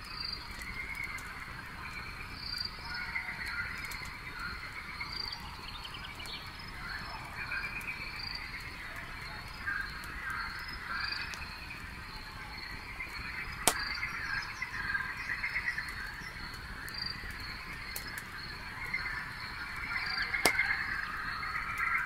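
Night chorus of frogs and chirping insects, swelling near the end, with a few sharp pops from a crackling wood campfire, the loudest about 14 seconds in.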